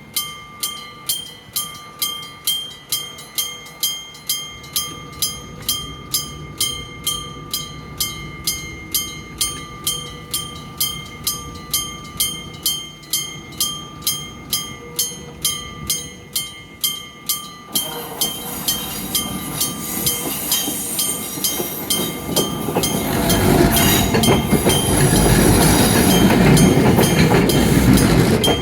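Japanese level-crossing warning bell ringing at about two strokes a second. About eighteen seconds in, a Kumamoto Electric Railway 01 series electric train is heard approaching, and its running noise and wheel clatter over the rails build to loudest near the end as it passes over the crossing, the bell still ringing under it.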